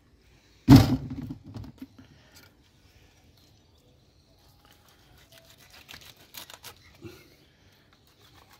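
A single loud knock about a second in, then quiet scraping and tearing as a knife cuts into the flesh of a large jack fish on a plastic cutting board.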